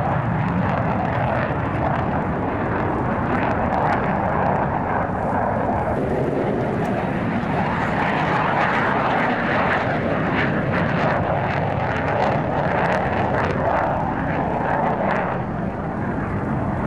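Jet engine noise from F-15 Eagle fighters flying past, a loud, steady rushing rumble.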